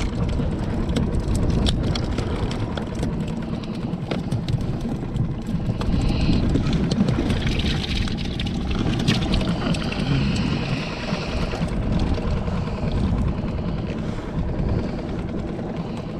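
Small skiff's outboard motor running steadily at trolling speed. A brighter, higher hiss rises over it from about six to eleven seconds in.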